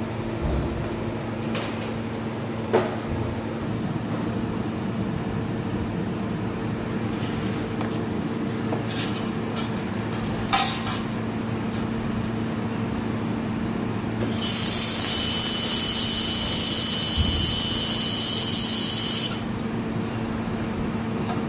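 2 kW laser welding machine running with a steady low hum and a few short clicks. About two-thirds through, a loud high-pitched whine of several tones starts, holds steady for about five seconds, and cuts off suddenly, as the welder fires.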